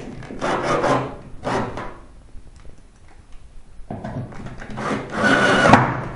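Cordless drill driving a screw through a metal support bracket into an aluminium rail, in rough bursts; the longest and loudest starts about four seconds in.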